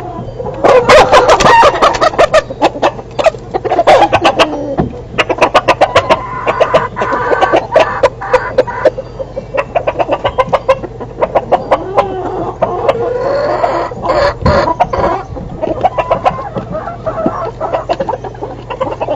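A flock of chickens clucking and cackling in rapid runs of short calls, with a rooster crowing, over a steady low hum.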